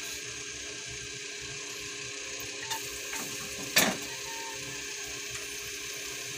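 A steady low hiss, then one sharp knock against the granite-coated wok a little under four seconds in, as minced garlic goes into the hot oil and a wooden spatula comes in to stir it.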